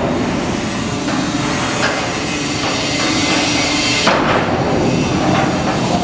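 Metal clanks as a hopper railcar's bottom discharge door and its Wine Rapid Release cam lock are worked open with a pry bar, the loudest clank about four seconds in. The clanks sit over a steady background noise.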